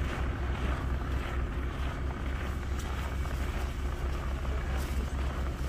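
Steady low rumble of street noise, with idling vehicles and wind on the microphone.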